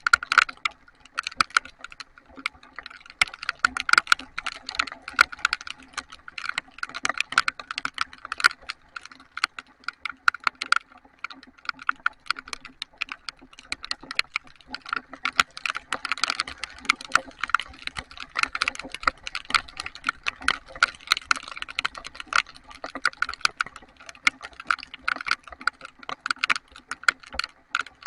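Heavy rain, large drops striking close to the microphone as a dense, irregular stream of sharp ticks, many a second.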